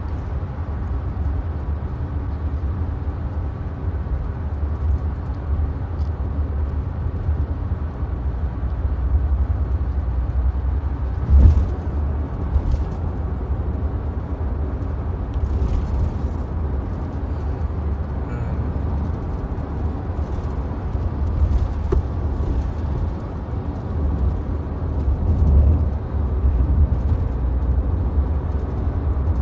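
Road noise inside a moving car's cabin: a steady low rumble, with a thump about eleven seconds in and another near the end.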